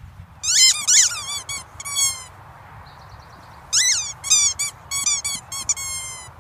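Squeaky dog toy squeaking in quick runs as a dog bites down on it: a burst of sharp, high squeaks about half a second in, then a longer run from about four seconds in until near the end.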